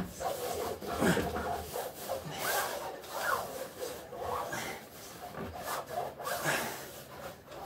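Hand rubbing liquid petroleum jelly onto a BH Fitness i.Ridium Avant treadmill's deck under the lifted running belt: repeated rubbing strokes, about one a second. The machine is being lubricated because the deck lacks grease.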